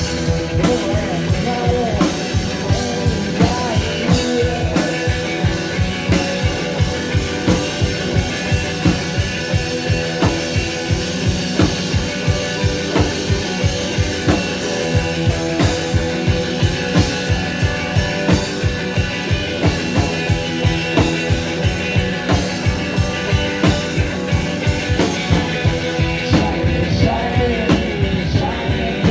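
Rock band playing live: a drum kit keeps a steady beat under electric guitars, with singing at times.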